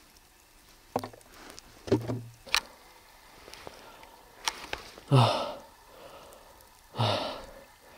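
A few short knocks and clicks from handling a large plastic water bottle, then two loud, voiced, breathy sighs about two seconds apart.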